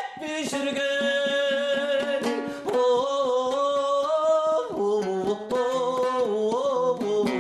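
Kazakh folk song: a voice singing long held notes that step down in pitch about two-thirds of the way through, over a fast, steady strumming of a plucked string instrument.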